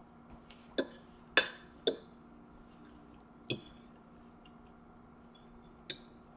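Metal fork clinking against a ceramic plate while eating, five sharp clinks spread unevenly, the loudest about a second and a half in.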